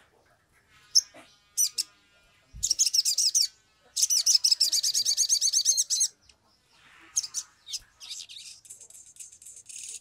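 Male olive-backed sunbird (sogok ontong) in full, agitated song: a couple of sharp, high chirps, then two fast, high-pitched trills of about one and two seconds, then more short runs of quick chirps. A soft thump comes at the start of the first trill.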